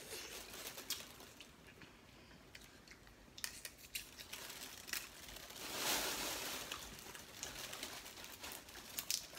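Plastic cooking bags crinkling and rustling as hands pick through a seafood boil, with scattered sharp clicks and cracks from crab-leg shells and a longer rustle about six seconds in.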